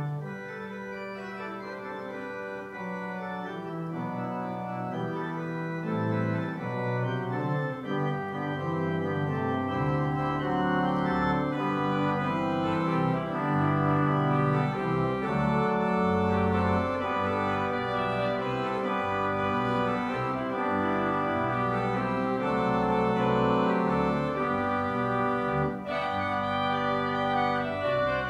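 Organ music: held chords that change every second or two, with deep bass notes coming in about ten seconds in and the music growing louder.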